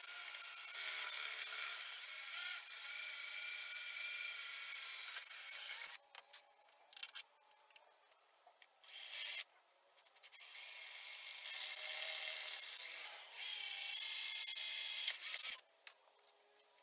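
Power drill boring holes through a Corian block, the bit passing through the holes of a metal decking plate. It runs as a whining spin in several goes: one long run of about six seconds, a short burst, then two more runs of two to three seconds each.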